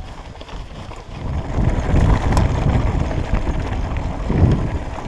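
Wind buffeting the microphone of a handlebar-mounted camera on a moving mountain bike, mixed with the tyres rolling over a dirt and rocky trail. It is a low, rough rumble that swells about a second and a half in and eases near the end.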